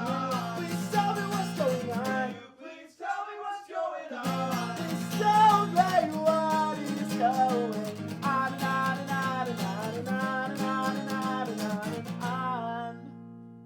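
A man singing to a strummed acoustic guitar. A little after two seconds in, the guitar stops for about two seconds while the voice carries on alone, then the strumming comes back; near the end the strumming stops and the last chord rings on and fades.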